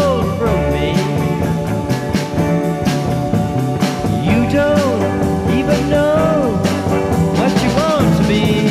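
Instrumental break of a rock song: a lead instrument plays short notes that bend up and fall back over steady bass and drums, with no singing.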